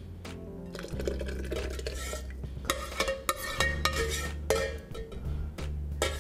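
A metal ladle scraping and clinking against a stainless steel pot as hot soup is poured and scraped into a glass blender jar, with many quick knocks and clinks. Background music with a steady bass line plays underneath.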